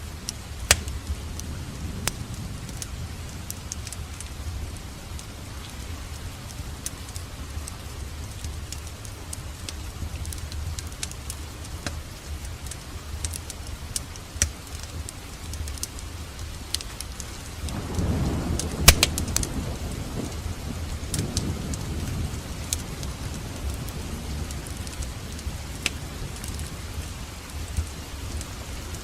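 Wood fire in a fireplace crackling, with sharp pops scattered throughout over a low steady rumble. About eighteen seconds in it swells louder for a couple of seconds, with the loudest pop.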